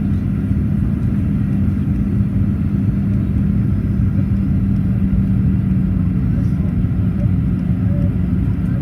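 Steady cabin rumble inside a Boeing 737-800 in flight, with a steady low hum running through it.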